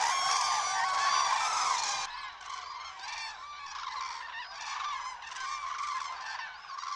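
A flock of common cranes calling, many clanging calls overlapping as the flock takes off. About two seconds in the calling becomes quieter and duller.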